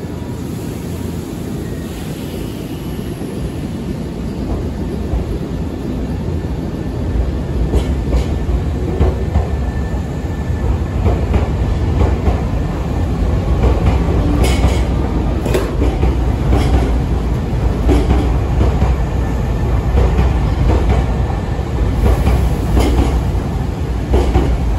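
Nankai 6000 series stainless-steel commuter train pulling out and gathering speed past the platform. Its running rumble grows louder over the first several seconds, then holds, with irregular wheel clacks from about eight seconds in.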